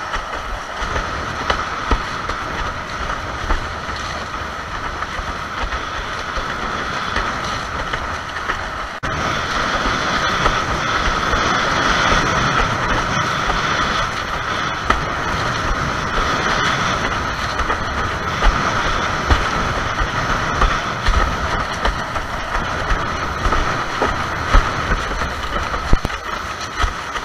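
Windsurf board planing through chop: a steady rush of water and wind noise, with frequent small slaps of the hull against the waves. It gets louder about nine seconds in.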